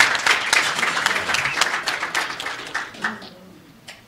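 Audience applauding, dense clapping that thins out and dies away about three seconds in.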